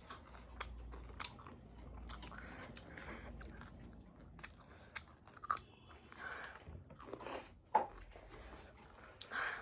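Close-miked chewing and biting of someone eating, with many small wet clicks and a few louder mouth sounds in the second half.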